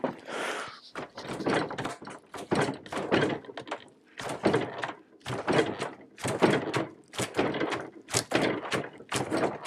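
Wooden mortise-and-tenon joint of a cabinet door frame knocking repeatedly as it is wrenched back and forth in a bench vise to pull it apart, the joint softened with white vinegar. Short wooden knocks come about two to three times a second.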